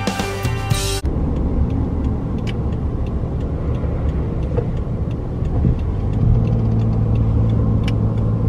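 Background music cuts off about a second in, giving way to the steady low rumble of a car on the move. About six seconds in, a steady engine hum joins the rumble.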